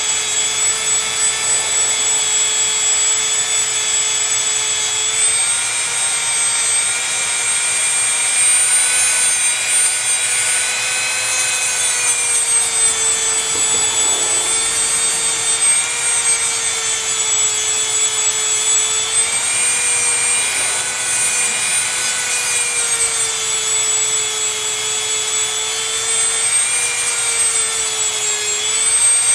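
Dremel 100 rotary tool running steadily with a high whine, grinding old paint off a composition doll's arm. The pitch sags slightly and recovers every few seconds as the bit is pressed into the surface.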